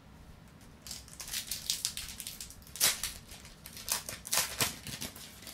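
Foil wrapper of a trading card pack crinkling in the hands as it is torn open: a run of crackly rustles, with one louder crackle about three seconds in.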